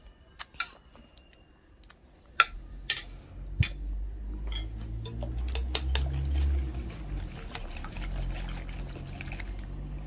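Wire whisk beating a thin cream mixture in a glass bowl: several sharp clinks in the first few seconds, then steady liquid sloshing.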